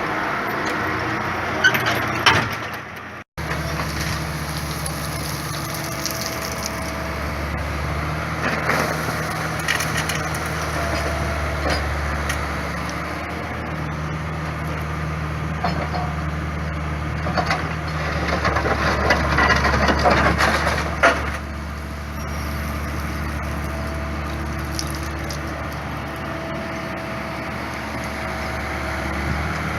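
Digger's diesel engine running steadily while the machine works the yard, with cracking and crunching as old concrete is broken and scraped up, the crunching thickest about two-thirds of the way through.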